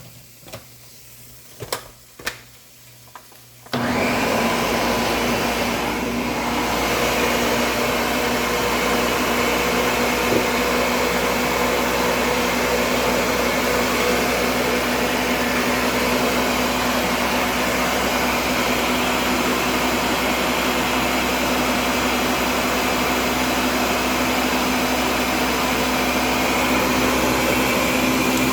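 A few light clicks, then a countertop blender switches on about four seconds in and runs steadily at one speed, blending spinach and water.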